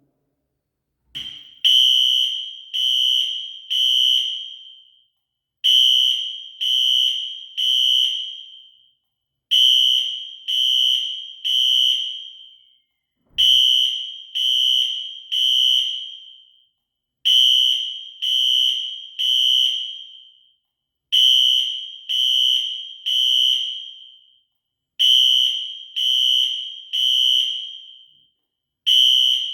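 Fire alarm sounder going off in the temporal-three evacuation pattern: three high-pitched tones about a second apart, then a pause, repeating roughly every four seconds. It starts about a second in, just after a click, and a low thump falls about thirteen seconds in.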